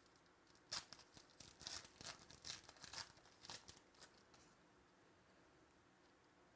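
Faint rustling and scratching of trading cards and packaging being handled, in short scratchy bursts for about four seconds, then near silence.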